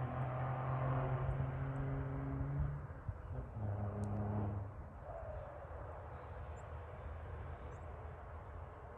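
Heavy truck's engine sounding through a modified exhaust: a deep, steady drone that holds for about three seconds, drops abruptly to a lower note around four seconds in, then falls away to a faint rumble.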